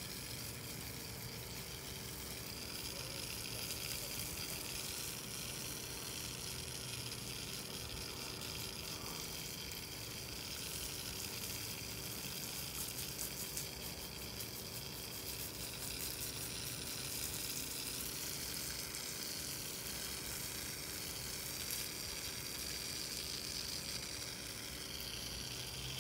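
Soft-wash spray of sodium hypochlorite and soap roof-wash mix, fed by a 7-gallon-per-minute pump, hissing steadily as the stream lands on asphalt shingles.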